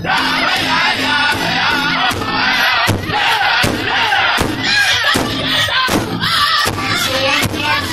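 Powwow drum group singing an intertribal song: several men's voices in unison over a large hide powwow drum struck together with sticks in a steady beat.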